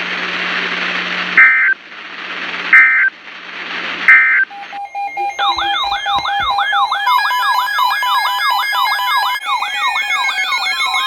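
Emergency Alert System end-of-message data tones: three short, loud, screechy bursts about a second and a half apart over radio hiss and hum. From about five seconds in, an electronic siren sounds, with a fast repeating wail and several falling glides layered over it.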